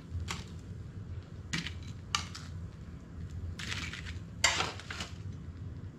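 A metal utensil clinking and scraping against an air fryer's basket and a ceramic plate as cheese hot dogs are lifted out: a few short separate clinks, with a longer, louder scrape about four and a half seconds in.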